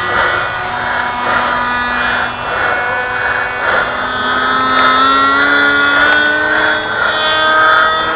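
Motor of a radio-controlled foam model jet running steadily in flight, a high whine whose pitch drifts slowly as the throttle changes.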